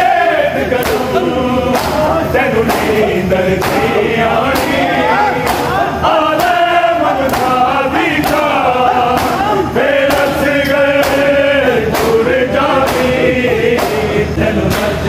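A large group of men chanting a noha (mourning lament) together. Under the chant, chest-beating matam slaps keep a steady beat of about one a second.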